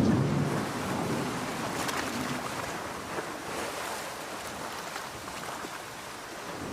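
Steady hiss of heavy rain and surf from a stormy sea, with the low rumble of a thunderclap dying away in the first second.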